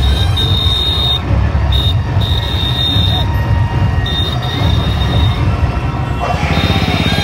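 Loud sound from an outdoor loudspeaker system, heavy in the low end, with a high steady whistling tone that cuts in and out several times.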